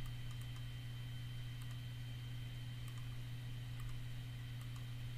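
A few faint, scattered clicks of a computer mouse over a steady low electrical hum.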